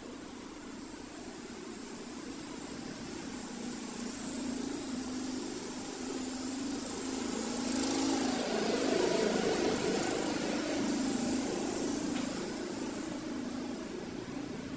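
An engine running, with a wavering low hum that grows louder toward the middle and then eases off.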